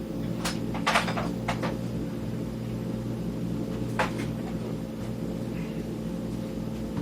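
A few short clicks and knocks of a tool and the unit's casing being handled during disassembly, the loudest about a second in and another about four seconds in, over a steady low hum.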